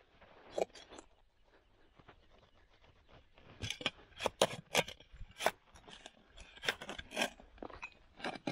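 Spade and gloved hand digging in stony soil: sharp scrapes and clinks, sparse at first, then coming in quick succession from about three and a half seconds in as the blade and hand work the earth and stones around a buried cast-iron piece.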